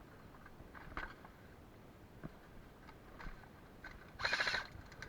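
Airsoft gun firing a short automatic burst about four seconds in: a rapid run of clicks lasting about half a second, with a few faint knocks before it.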